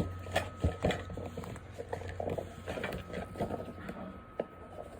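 Plastic clicks and handling noise as foam darts are loaded into a Nerf blaster, with a few sharp clicks in the first second and softer knocks after.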